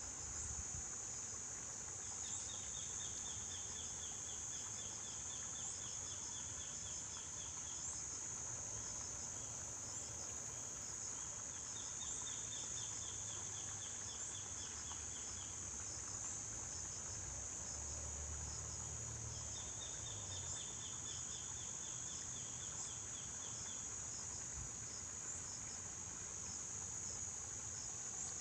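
Insects calling: a continuous high-pitched drone, joined by rapid chirping runs of four to five seconds that start about two seconds in, near the middle, and again about two-thirds through.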